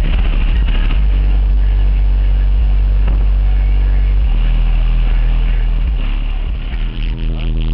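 Car audio system with Sundown Audio subwoofers playing bass-heavy music, heard from outside the car at the boot, with deep steady bass notes coming through the body. The bass dips briefly near the end.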